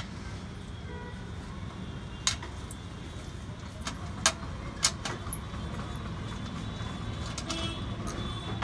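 Sharp metal clicks and clinks of a socket wrench and bolt on a steel silencer mounting bracket as the bolt is worked loose and the bracket is lifted away, over a steady low background rumble.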